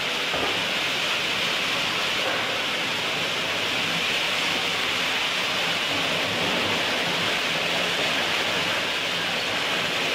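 Steady hissing machinery noise with a faint low hum underneath, even throughout, from the block presses and their drive running.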